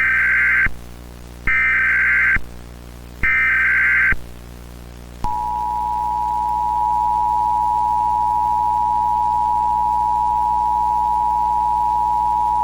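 Emergency Alert System header: three bursts of SAME data tones, each just under a second, then the two-tone EAS attention signal starting about five seconds in and held steady. A faint VHS-style hum runs underneath.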